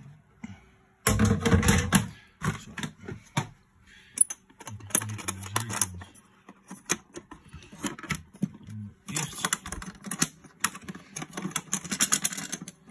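Aluminium chuck box being handled: metal clasp latches clicking and the thin aluminium panels rattling and clattering in quick runs of clicks, loudest about a second in and again for the last few seconds.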